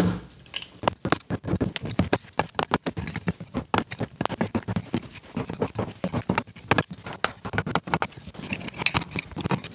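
Utility chisel levering and chipping bark off a dry olive-wood blank: a rapid, irregular run of cracks, snaps and scrapes as the bark breaks away in chips.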